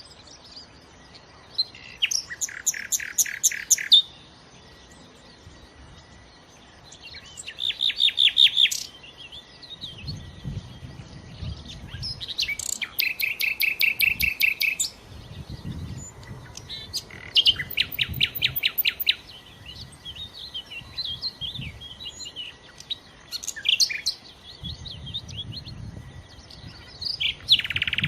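Nightingale singing in separate phrases of rapid repeated notes, each phrase lasting one to three seconds, with short pauses between them. A soft low rumble comes and goes underneath.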